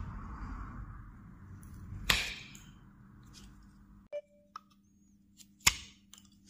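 Small carving knife cutting into a wooden block: a long scraping slice over the first few seconds, with sharp snaps as chips break off about two seconds in and again near the end.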